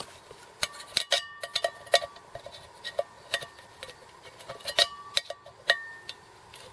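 Titanium cookware being handled: a string of sharp metal clinks and taps, several leaving a short bright ring.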